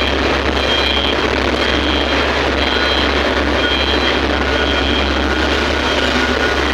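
Heavy earthmoving machinery running steadily, a loud even engine rumble, with a faint high beep repeating about once a second.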